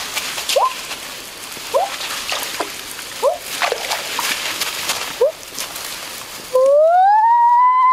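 Water splashing and sloshing as someone wades through a shallow stream, with short rising squeaky calls about once a second. Near the end a loud, long pitched tone starts, sliding up and then holding.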